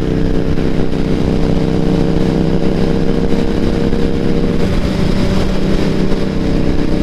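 Motorcycle engine running steadily at cruising speed, a constant drone, over heavy rumbling wind noise. About four and a half seconds in, one of the engine tones drops away.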